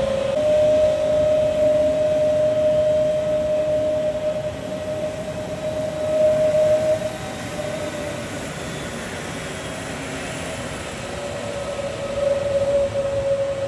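Airbus A320neo's Pratt & Whitney geared turbofan engines running at taxi power: a steady high whine over a rushing noise, growing louder near the end as the aircraft turns its exhausts toward the listener.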